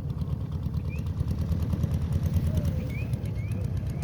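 Model aeroplane engine running, a steady rapid low pulsing.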